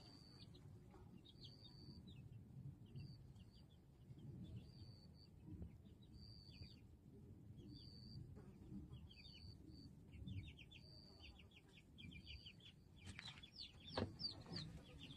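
Eight-day-old white Silkie chicks peeping faintly, soft short peeps about once a second that come thicker and a little louder near the end.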